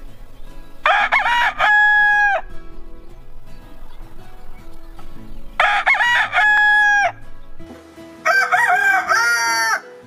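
Rooster crowing: three separate crows, each about a second and a half long and ending in a long held note.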